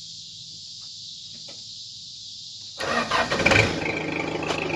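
Case 480 backhoe engine starting up suddenly about three seconds in and running on; it fires right up on its own now that the corroded battery terminals are cleaned.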